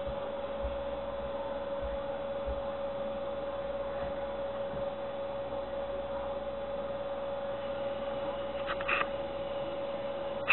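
A steady electrical hum at one pitch over faint background noise, with a few soft low thumps in the first few seconds and a short scratchy rustle near the end.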